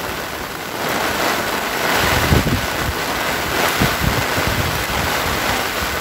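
Heavy rain and rushing floodwater making a steady hiss, with gusts of wind buffeting the microphone from about two seconds in.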